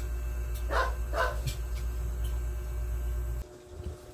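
A dog barking twice in quick succession, about a second in, over a steady low hum that cuts off suddenly near the end.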